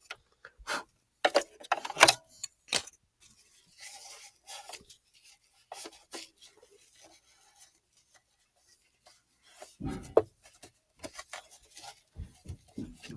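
Intermittent rubbing and scraping with scattered light clicks and knocks from a small brush and hands working in a sewing machine's bobbin area to clean out lint and dirt.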